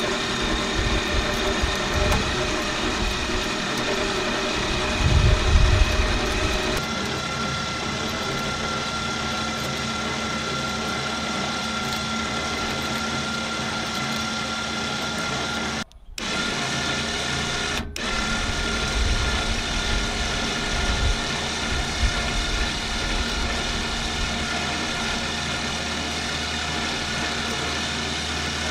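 Electric winch motor running steadily under load, winding in the cable that raises a hinged Rohn 25 antenna tower. The sound drops out briefly twice about two-thirds of the way through.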